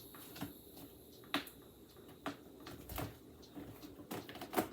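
Irregular knocks and clunks of a portable fridge-freezer being handled and pushed into place, about half a dozen short hits, the loudest near the end.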